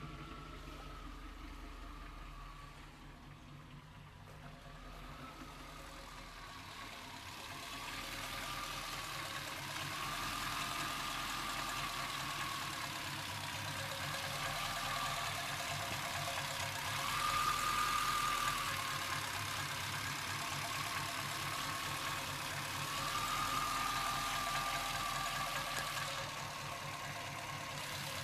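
1990 Chevrolet C1500's 350 throttle-body-injected V8 idling roughly, its note swelling and sagging every few seconds and getting louder a few seconds in. This is the low, unsteady idle that sometimes drops so far that the engine stalls, a fault the owner has not yet traced.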